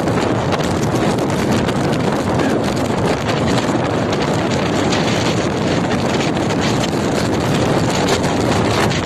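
Strong blizzard wind blowing hard across the microphone, a loud steady rush with constant low buffeting.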